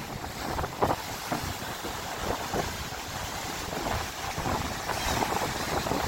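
Choppy sea waves splashing and breaking against shoreline rocks, with wind buffeting the microphone as a low rumble.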